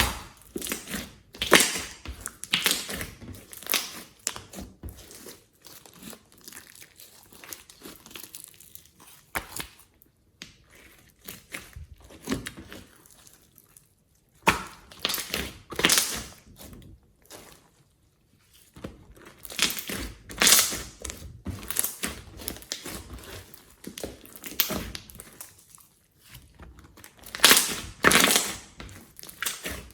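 Slime being squeezed, stretched and poked by hand: irregular, sharp noisy bursts of varying loudness with short pauses between them.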